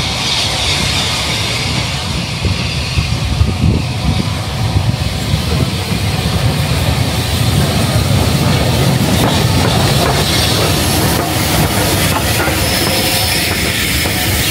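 Bulleid Battle of Britain class steam locomotive 92 Squadron rolling past with a steady rumble and hiss of steam, followed by its coaches, whose wheels click over the rail joints as they go by.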